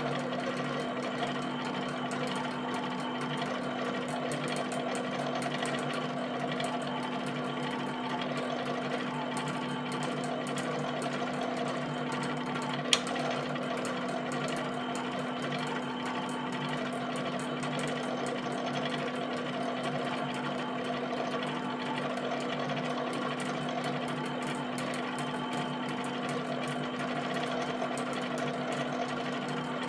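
HP 7585B pen plotter drawing dots: the pen tapping rapidly and continuously on the paper over the steady hum of its drive motors, with one sharp click about halfway through.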